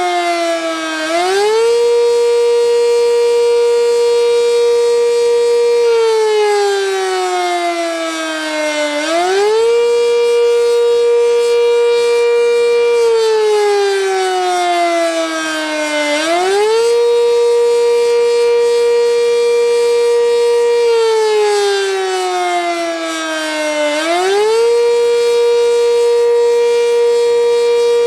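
Sentry 10V electromechanical warning siren sounding on a test. Its tone holds steady for a few seconds, slides slowly down, then quickly climbs back up to the top pitch, in a cycle that repeats about every seven to eight seconds and climbs four times.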